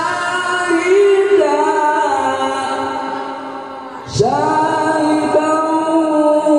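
A young male qari chanting Quran recitation solo into a handheld microphone, holding long, ornamented notes. One phrase fades away, and a new, louder phrase begins sharply about four seconds in.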